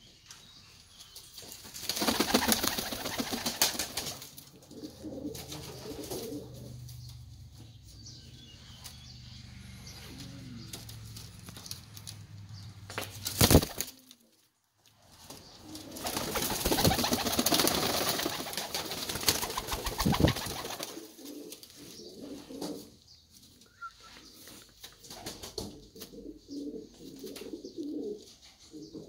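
Reversewing pouter pigeons cooing, with two louder spells of wing flapping, one near the start and one about midway.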